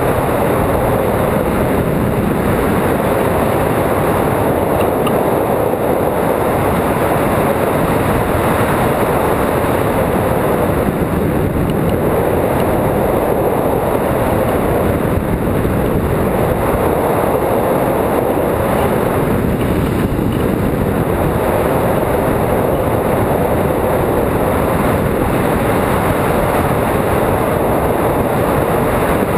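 Loud, steady rush of airflow over the microphone of a camera mounted on a hang glider's wing in flight, swelling and easing slightly every few seconds.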